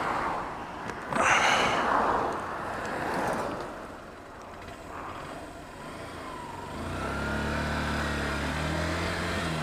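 Oncoming van passing close with a rush of tyre and wind noise about a second in, then a steady low engine hum from about seven seconds in that drops in pitch near the end.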